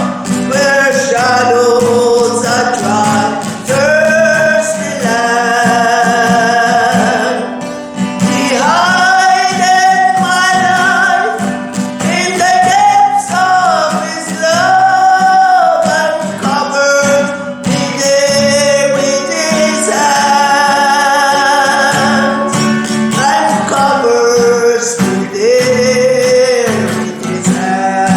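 Singing with instrumental accompaniment, a song of worship: long held notes sung with vibrato over a steady backing, with guitar among the instruments.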